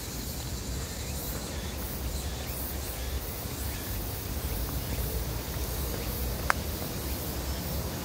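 Walking along a forest trail: a low rumble of steps and camera handling, with insects calling faintly high in the background. A single short, sharp sound stands out about six and a half seconds in.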